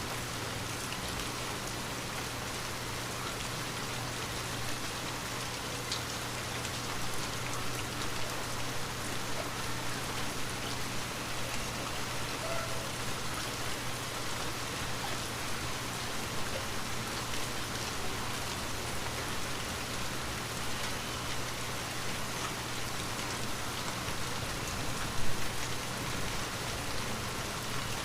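Light rain falling steadily, a fine patter of drops striking surfaces. One brief louder hit stands out near the end.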